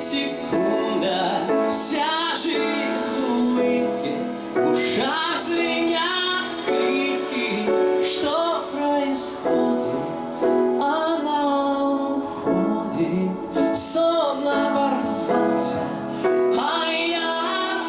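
A man singing into a microphone while accompanying himself on a grand piano, a slow song with held notes that waver with vibrato over sustained chords.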